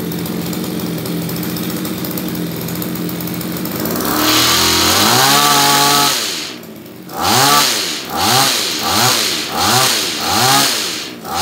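Small two-stroke engine of a Komatsu BC2310 pole hedge trimmer idling. About four seconds in it is revved up and held high for about two seconds, then drops back. It is then blipped in a string of short revs, about one a second, each rising and falling back.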